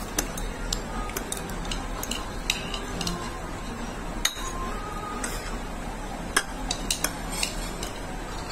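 Chopsticks clicking against a bowl of noodles during eating, in irregular sharp clicks, the loudest about four and six seconds in, over a steady low hum.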